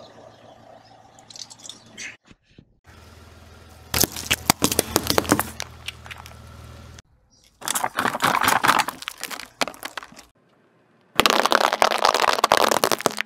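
A car tyre rolling over and crushing small plastic objects: three separate bursts of dense cracking and crackling, a few seconds apart. The first comes from plastic jelly cups being crushed, and the last from a pile of paintballs being crushed.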